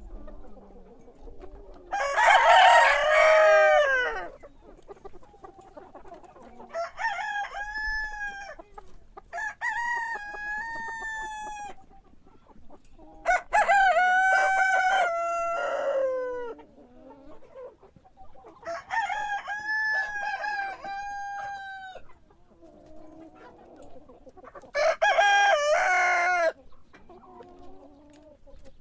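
Rooster crowing: about six long crows spread through, each a pitched, bending call of one to three seconds, the loudest about two seconds in, near the middle and near the end, with fainter ones between.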